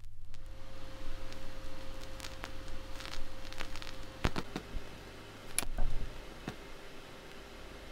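Vinyl record surface noise with no music: faint hiss and scattered crackles as the stylus rides the groove, with a few louder pops about four and five and a half seconds in, over a low steady hum.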